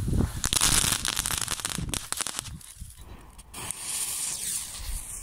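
A ground firework going off in a big flash, with dense crackling for about two seconds. Then a freshly lit fuse hisses and spits sparks.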